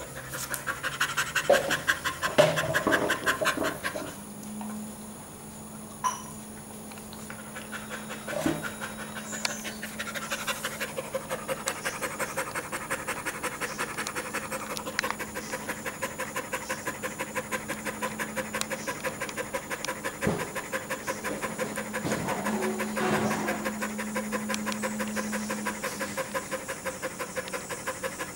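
Dog panting fast, with quick, regular breaths through the open mouth, louder for the first few seconds. It is the heavy panting of a dog cooling itself, tired after running in summer heat.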